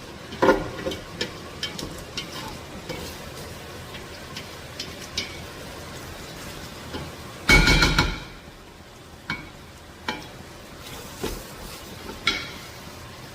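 Beef, tomatoes and onions frying in a pot, with a spoon stirring and scraping against it in scattered clicks and knocks over a steady sizzle. About halfway in there is one louder burst lasting about half a second.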